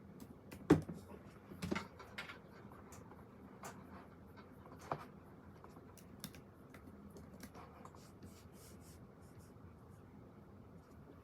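Pen writing on paper, with soft scratching and faint ticks, a sharp click about a second in and a few knocks soon after.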